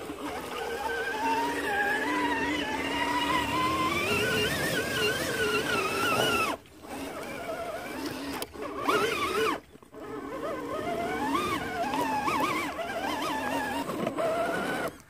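Electric motor and gear drivetrain of an RC rock crawler whining under throttle, the pitch rising and falling as the throttle changes. It cuts out briefly twice, at about six and a half and nine and a half seconds in, then starts up again.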